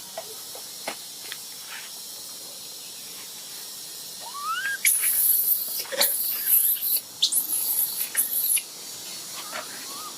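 Baby monkey giving a few short rising squeaks, around the middle and near the end, with bursts of high hissing noise in between.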